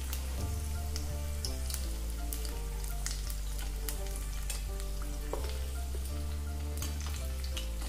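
Hot oil sizzling steadily with scattered crackles as golden-brown stuffed rolls deep-fry in a kadai and are lifted out with a slotted steel spoon. Soft background music with held low notes runs underneath.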